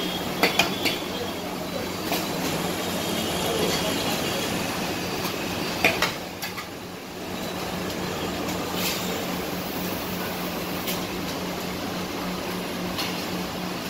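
Steady rushing background noise with a constant low hum, broken by a few scattered sharp clicks and knocks, as in a busy eatery.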